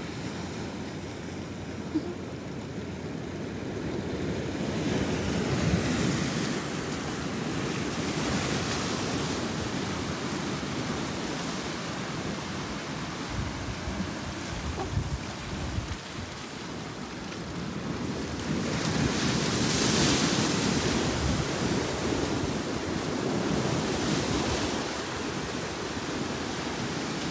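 Surf breaking on a rocky shoreline, a continuous wash that swells louder in surges, most strongly about six seconds in and again around twenty seconds, with wind on the microphone.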